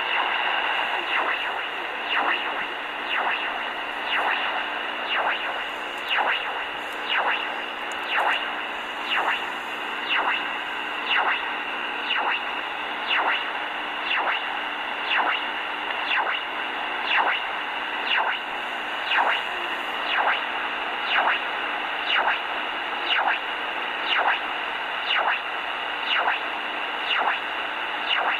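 Shortwave signal on 4575 kHz from a Grundig G8 Traveler II portable radio: a short pulse repeating about once a second over steady static hiss, with a faint steady low hum underneath. The signal is unidentified.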